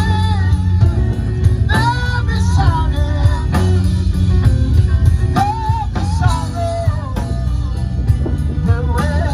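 Live band playing through a PA system: a lead singer with wavering, held notes over electric guitars, bass and a drum kit keeping a steady beat.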